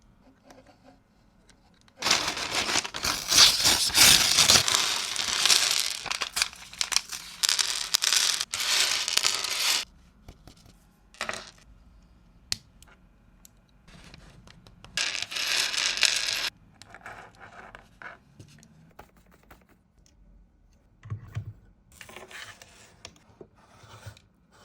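Packaging being torn and crinkled by hand: a long noisy stretch of tearing and rustling from about two seconds in, another shorter one later on, and quieter handling and clicks between.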